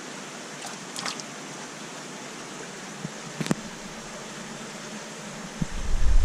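Steady background hiss with a few light clicks and taps as a wire-mesh fish trap is opened over a plastic bucket; near the end, loud low bumps and rumbling.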